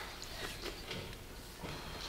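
Quiet gym room tone with a few faint light clicks and knocks.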